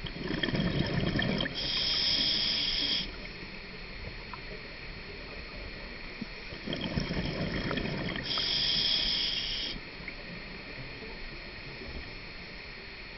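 Scuba diver breathing through a regulator underwater, twice: each time a low burble of exhaled bubbles, then the hiss of the inhaled breath. About six seconds pass between breaths.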